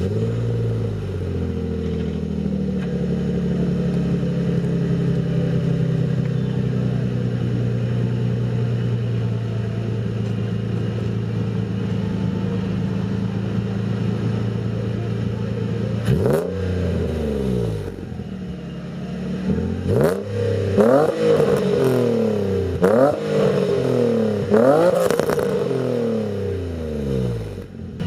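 Nissan VQ35 3.5-litre V6 in a 240SX with a custom exhaust, idling steadily just after starting. About halfway through it is revved once, then blipped in a quick series of revs near the end.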